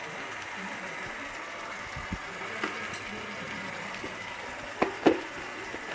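Potatoes and sliced onions frying in hot oil in a pan, a steady sizzle, with two sharp clicks near the end.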